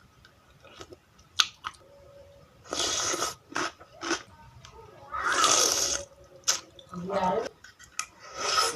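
Close-up eating sounds of spicy seblak with noodles: two long slurps, with short wet smacks and clicks of chewing between them, and a brief voiced sound near the end.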